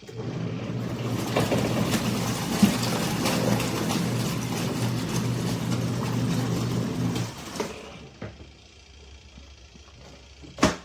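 BANGSON compact twin-tub portable washing machine running with a steady motor hum and churning noise. The motor stops about seven and a half seconds in, and a sharp click sounds near the end.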